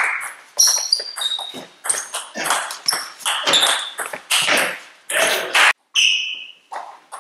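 Table tennis rally: the ball clicks in quick succession off the bats and the table, with short high squeaks that fit shoes on the sports-hall floor. The sound breaks off for a moment near the end.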